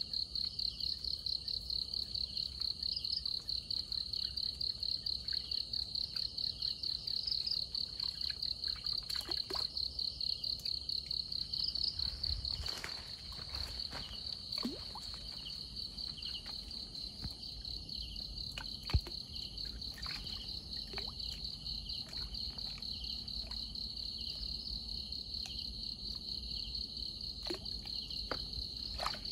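Night insects chirping in a steady, high, pulsing chorus, about three pulses a second. Occasional small splashes and drips of water come from a net fish trap being handled in a shallow ditch.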